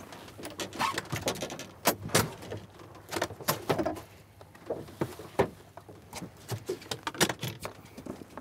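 Irregular knocks, taps and rattles as a tripletail is handled in a landing net on a boat deck while the hook is taken out of its mouth.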